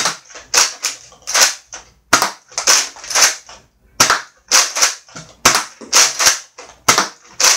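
Nerf N-Strike Elite XD Retaliator, a spring-powered, slide-primed dart blaster, being primed and fired over and over. The plastic priming slide clacks and each shot snaps, about two sharp clicks a second, in loose groups.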